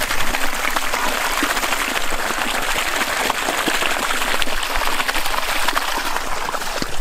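Water rushing and splashing steadily, a dense crackling hiss with no pauses.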